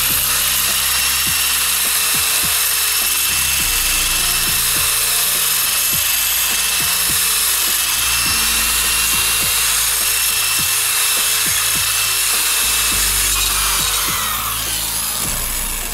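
Small electric angle grinder with a sanding disc, running at a steady high whine while grinding and rounding the corners and edges of an aluminum flat bar. The motor winds down near the end as the tool is switched off.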